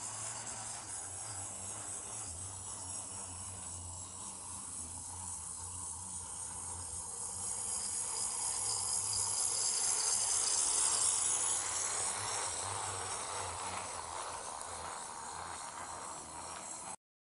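Whirring of a motorized toy steam locomotive: a Tamiya mini motor and low-speed gearbox driving it along plastic track. The buzzing grows louder as the train nears, peaks about ten seconds in, then eases off and stops abruptly near the end.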